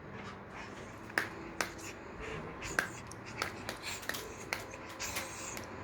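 A dog trying to get a ball: a string of irregular sharp clicks and taps, about a dozen over several seconds.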